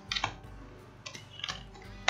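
Computer keyboard keys being typed: a quick run of clicks just after the start and a couple more about a second and a half in, over soft background music.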